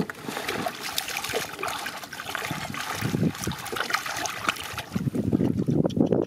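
Shallow muddy water splashing and sloshing as hands dig and grope through the mud, in irregular wet splashes, heavier and deeper from about five seconds in.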